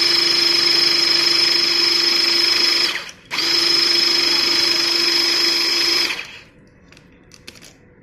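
Battery-powered hydraulic crimping tool's motor and pump running with a steady whine while it crimps a cable lug: about three seconds of running, a short break, about three seconds more, then it stops, with a few light clicks after.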